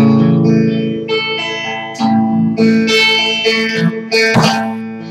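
Guitar strumming the opening chords of a slow song, each chord left to ring and fade before the next strum, with a fresh strum about every half second to second.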